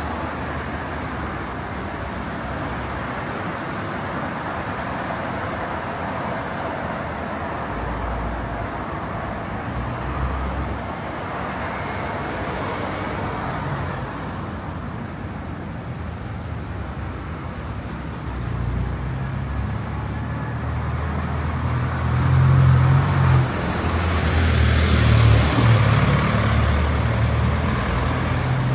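Road traffic, cars running on a city street, with a steady noise that swells in the last third as a vehicle passes close by.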